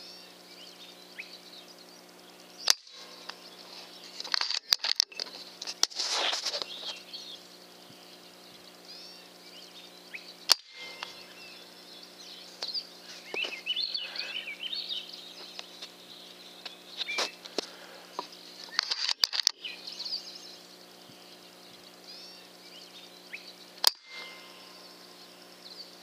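Three sharp cracks of an FX Impact PCP air rifle firing at a rabbit: one early, one around the middle and one near the end, the later ones follow-up shots after a first shot landed high. Birds chirp between the shots over a faint steady hum.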